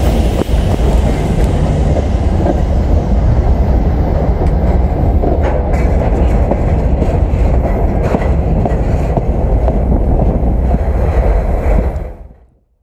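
Freight train rolling at speed, heard close up from a moving wagon: a steady loud rumble and rattle of wheels on rails that fades out near the end.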